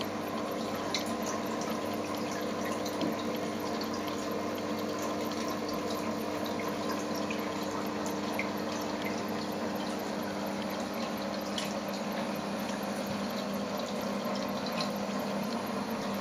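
Reef aquarium's water circulation: a steady run of moving water over a low, steady pump hum, with scattered small drips.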